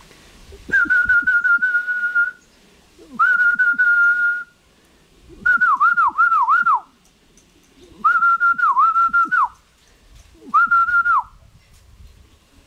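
A person whistling five times, each a held note at one pitch; the middle phrases are broken by quick downward dips. It is a pigeon fancier's call to returning racing pigeons sitting on the loft roof, to bring them down into the landing trap.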